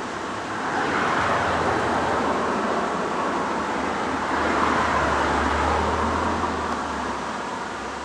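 Road traffic passing: a rushing noise that swells about a second in, rises again with a low rumble around four to six seconds, then fades.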